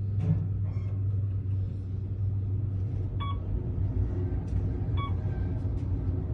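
Otis service elevator cab in motion: a steady low rumble and hum, with two short electronic beeps, about three seconds in and again near five seconds.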